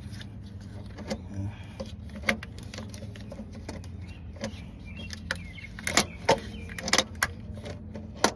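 Scattered metallic clinks and knocks of hand tools being handled and worked, several in quick succession about six to seven seconds in, over a steady low hum.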